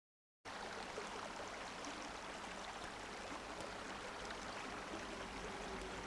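Steady sound of running water that cuts in abruptly after a split second of dead silence and holds at an even level.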